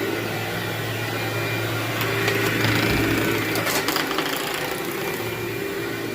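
Vacuum cleaner running steadily over carpet, with a crackle of grit being sucked up that swells through the middle.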